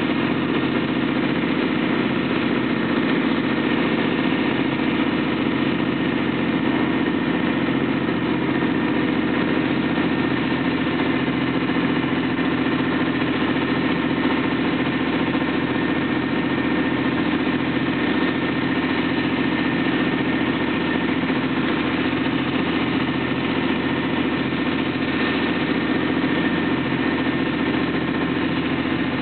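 Engine of a large vehicle running steadily at low speed, heard from inside its cab: a constant drone that neither rises nor falls.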